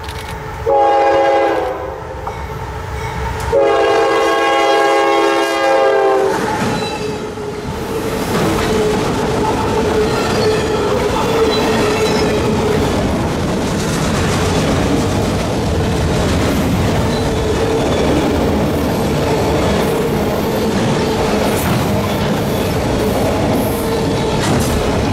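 Diesel freight locomotive horn sounding a short blast about a second in and a longer one at about three and a half seconds. Then a long train of autorack cars rolls past close by, with steady wheel noise on the rails.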